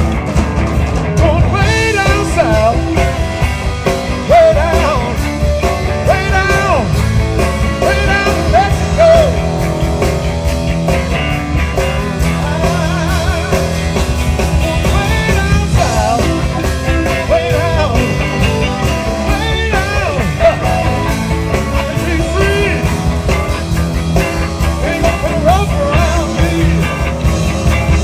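Live blues-rock band playing: electric guitar with bent, wavering notes over bass and drums, with some singing.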